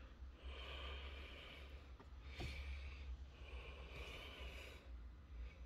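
Faint breathing close to the microphone, two slow breaths, with a single sharp click between them over a low steady hum.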